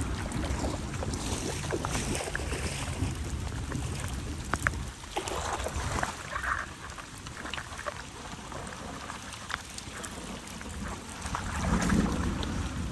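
Floodwater running steadily into a storm drain, with a low rumble and scattered small knocks and scrapes.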